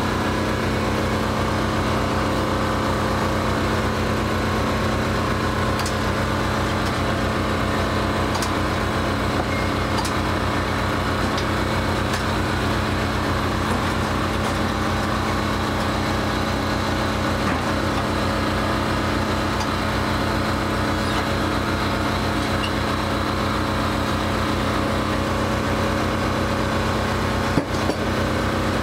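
An engine running steadily at an even speed, with one short knock near the end.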